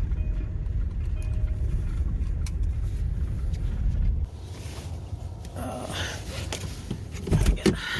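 Car running with a steady low rumble, with a short chime repeating about once a second at the start. About four seconds in the rumble cuts off, and rustling and a few knocks follow.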